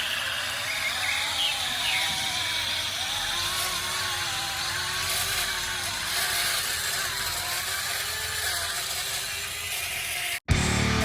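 Small electric motors and gearboxes of radio-controlled model construction machines whirring, with a whine that wavers up and down as they work. Near the end the sound cuts off and rock music with guitar begins.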